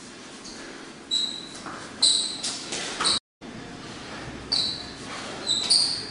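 Shoes squeaking and scuffing on a wooden floor under quick sparring footwork: about six short, sharp, high squeaks with a reverberant hall sound. The audio drops out briefly just past the middle.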